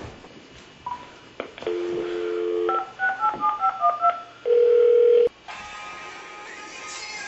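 Cordless home phone: a short dial tone, then about eight touch-tone key beeps dialed in quick succession, then a single steady tone for under a second.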